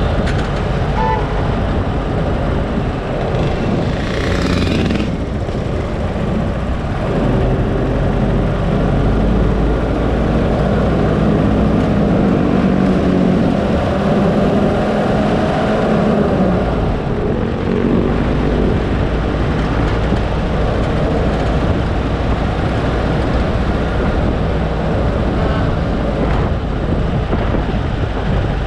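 Road and engine noise from a car driving in city traffic, steady and loud, with engine tones that rise and fall through the middle.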